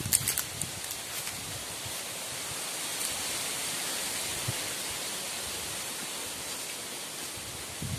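Steady, even hiss of open-air background noise, with a few brief sharp clicks in the first second or so.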